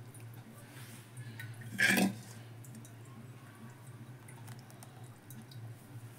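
Rista gravy in an aluminium pot with faint scattered crackles over a steady low hum, and one brief metallic knock against the pot about two seconds in.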